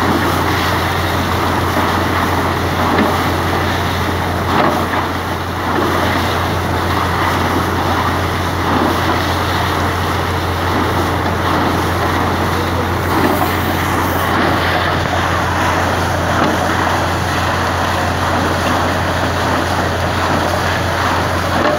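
Borewell drilling rig running with water and air blasting out of the borehole around the drill pipe: a loud, even rush of water over a constant low engine hum.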